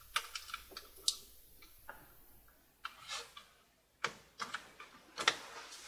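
Light, scattered clicks and taps of fingers and tweezers on small plastic parts as a ribbon cable is pressed back into its connector on a laptop motherboard.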